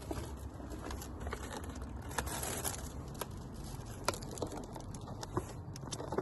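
Handling noises from breakfast of yogurt and fruit being dished up: scattered small clicks and knocks with a short rustle of packaging about two seconds in, over a steady low rumble.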